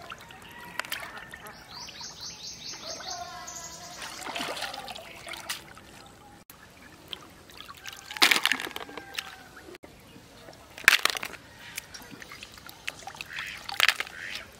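Shallow pond water splashing and sloshing as hands scoop through it, gathering freshwater mussels into a bamboo basket, with three louder splashes about eight, eleven and fourteen seconds in.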